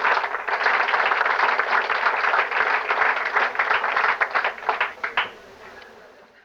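Audience applauding, dying away to a few last claps about five seconds in, recorded on Super 8 sound film.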